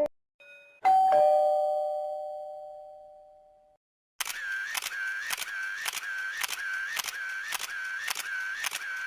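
Ding-dong chime sound effect: two bell tones struck about a second in, ringing and fading away over about three seconds. After a short silence a different sound effect repeats about twice a second for about five seconds, then stops.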